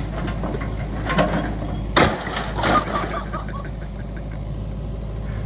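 Excavator engine running steadily, with sharp metal knocks and clanks about two seconds in and again shortly after as the machine works a lawn mower stuck in its grip.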